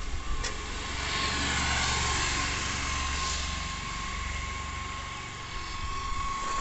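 Wind rumbling on the phone's microphone and tyre noise from a bicycle being ridden over a dirt road verge.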